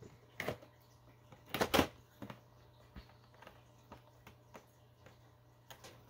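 Plastic packaging being handled while small accessories are taken out: scattered rustles and clicks, the loudest a short burst of crinkling about a second and a half in, over a faint steady hum.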